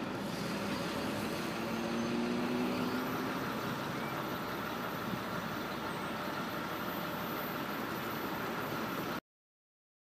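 Steady road traffic at a street crossing, with a vehicle engine humming from about one and a half to three and a half seconds in. The sound cuts off abruptly about nine seconds in.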